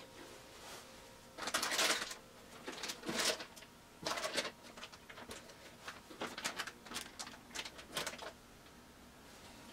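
Creamy noodle-and-ground-venison sauce simmering in a skillet on an electric coil burner, bubbles popping and crackling at irregular intervals. The loudest pops come in the first few seconds.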